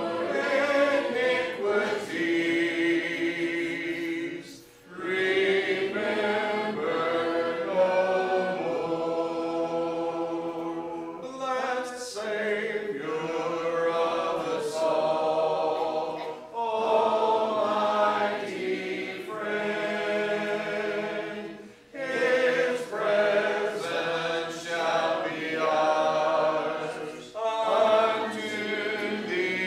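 A church congregation singing a hymn together a cappella, many voices with no instruments, in long sustained phrases with short breaks about five seconds in and again about twenty-two seconds in.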